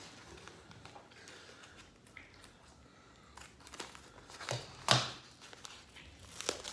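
Paper plant wrapping crinkling and rustling as a taped-on tag is picked at and peeled off, with a few sharper crackles about five seconds in and again near the end.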